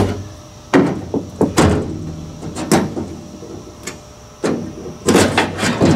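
Sheet of .100 aluminum floor plate clanking and rattling against the aluminum jon boat hull as it is pushed and pried into place: separate knocks in the first few seconds, then a quick run of clanks near the end.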